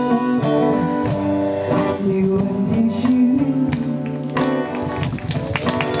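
Live band playing, with guitar over drums.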